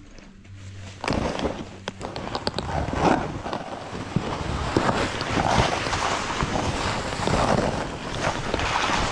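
Snowboard riding down snow: about a second in, the board's edge starts hissing and scraping through the snow, mixed with wind rushing over the microphone, rising and falling as the rider turns.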